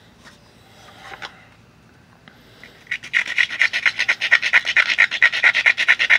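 Hammerstone being rubbed hard across the edge of a flintknapping piece in fast scraping strokes, several a second, starting about three seconds in. This stone grinding abrades the edge into a strong, continuous platform for striking flakes off. Before it, light handling of the stone on cloth.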